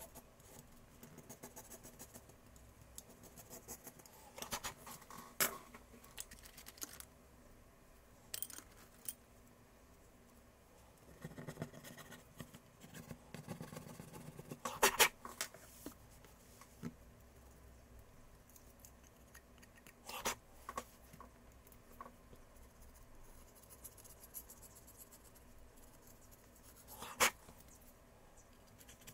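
Scattered clicks, taps and scraping of tools and parts being handled during a tablet screen replacement, with a stretch of rubbing about eleven to fifteen seconds in. The sharpest clicks come about fifteen seconds in and again near the end.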